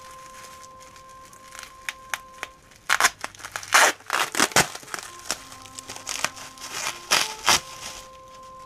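Bubble-wrap and plastic packaging crinkling and tearing as it is pulled off a small transformer, in clusters of loud crackles about three seconds in and again near the end, over steady background music.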